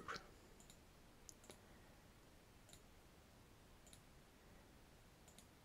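Near silence with about six faint, sharp computer mouse clicks.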